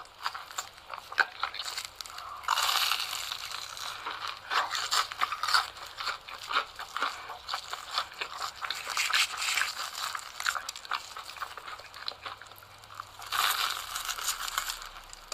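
Close-miked crunching and chewing of cheese sticks: crackly bites, with louder crunches about two and a half seconds in and again near the end.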